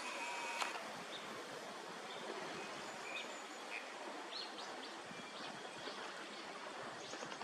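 Steady outdoor background noise with a few short bird calls scattered through it, the fullest one right at the start.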